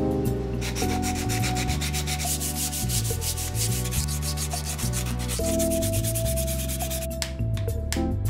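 Sandpaper rubbing over a new hickory hatchet handle in quick back-and-forth strokes, stopping about a second before the end. Background music plays throughout.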